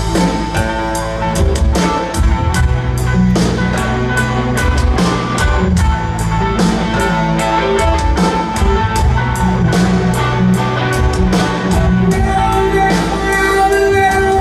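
Live rock band playing an instrumental passage: electric guitar over a steady drum kit beat.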